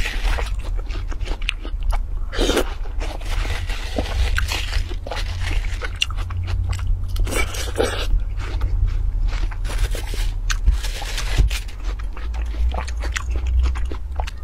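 Close-miked eating of watermelon: a metal spoon scooping the juicy flesh, then wet, crunchy bites and chewing in irregular crackles and clicks. A steady low hum runs underneath.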